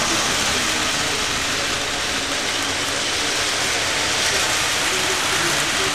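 Model trains running on the layout's metal track, a steady rolling noise of wheels on rail.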